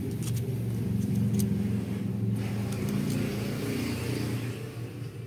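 A low, steady mechanical drone, like an engine running, fading a little near the end. Over it come a few faint light clicks of a screwdriver tip picking dirt out of a brass pressure-washer pump head.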